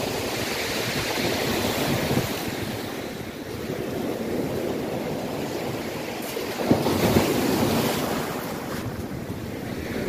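Sea waves breaking and washing up a shingle beach, with wind buffeting the microphone. The surf suddenly grows louder about two-thirds of the way in, then eases off.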